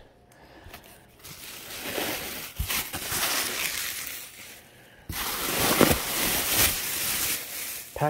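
Bubble wrap and plastic air-pillow packing rustling and crinkling as it is handled in a cardboard box, in two long stretches with a short break about halfway.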